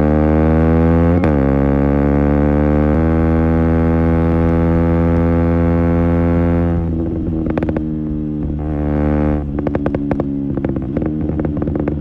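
KTM Duke 125's single-cylinder engine through an Akrapovic exhaust on a decat link pipe, accelerating hard with two quick upshifts, its pitch rising. Past halfway the throttle closes and the exhaust crackles and pops on the overrun, the unburnt-fuel backfiring that the decat pipe encourages.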